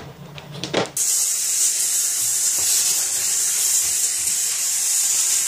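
Kärcher SC4 steam cleaner jetting steam through its small round brush nozzle: a steady hiss that starts about a second in, with the brush rubbing along the tile floor and kickboard, after a few soft handling knocks.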